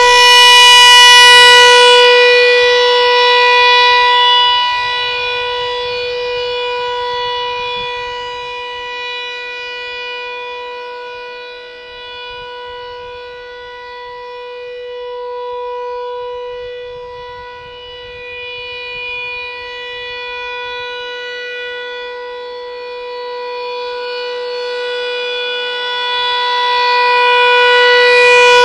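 ASC T-128 outdoor warning siren sounding a steady single-tone wail at full pitch. The tone holds level throughout. Its loudness swells and fades as the rotating horn turns toward and away from the listener: loudest at the start and near the end, much fainter through the middle.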